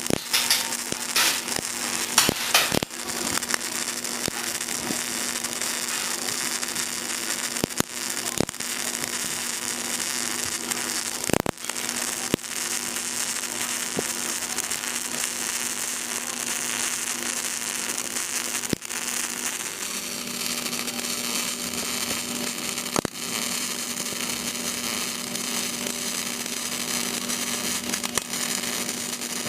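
CO2 semi-automatic welding arc crackling and sputtering steadily over a low steady hum, the arc breaking off for an instant a few times.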